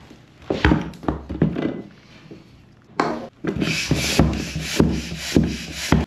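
Floor pump worked by hand to inflate a tubeless road bike tire and seat its bead. A few knocks come first. From about three seconds in there is a hiss of air with a knock on each stroke, about two strokes a second.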